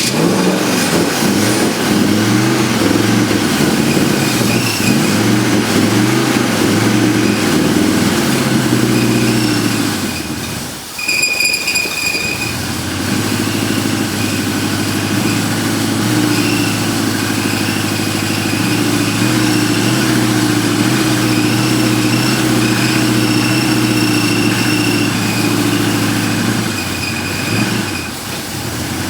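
A 1953 GMC 100 pickup's engine running after its first start. It is revved up and down for about the first ten seconds, dips briefly, then runs more steadily.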